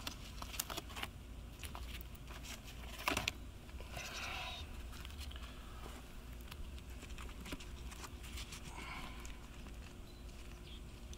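Scattered light clicks, taps and scrapes of split-stone veneer pieces handled by gloved hands and knocked against the stonework, with one louder knock about three seconds in.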